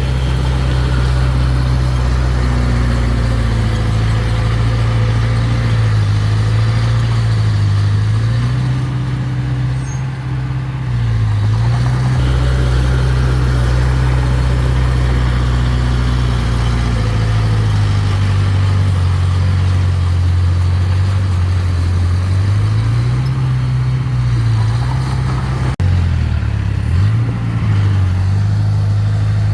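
Diesel engine of heavy earthmoving equipment running under load, its pitch dipping and rising several times as the throttle changes, with one brief knock near the end.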